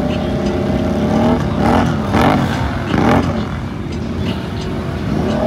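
Side-by-side UTV engine revving hard in deep mud and water. The note climbs, then swings up and down several times as the machine fights for traction in two-wheel drive, before settling to a steadier, lower note and climbing again near the end.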